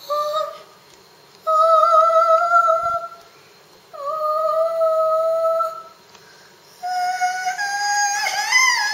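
A girl humming long steady notes, three of them with pauses between. Near the end she moves into a higher, rising, wavering sung line.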